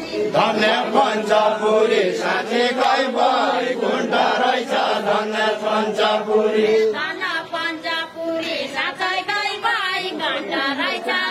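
Deuda folk song: a group of voices singing together in a chant-like unison, with long held notes.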